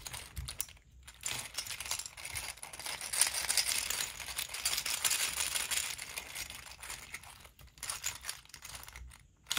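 Hard plastic clicking and rattling of a 3D-printed articulated panda's jointed limbs and body segments as they are flexed and turned in the hands. The rattling is dense at first and thins to a few clicks near the end.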